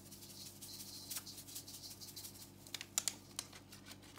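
Sazon seasoning powder shaken from its packet onto raw fish in a stainless steel bowl: a faint, high hiss for the first second or so, then scattered small clicks and rustles.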